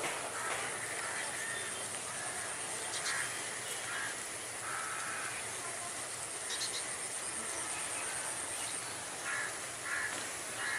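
Outdoor background noise with crows cawing a few times, spread through.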